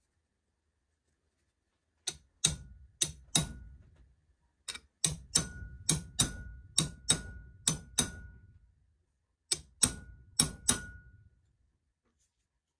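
A small hammer tapping a steel pin punch to drive the handle pin out of a 1960s Ulster camping knife. There are about seventeen sharp metallic taps in three runs, two to three a second, many with a brief high ring.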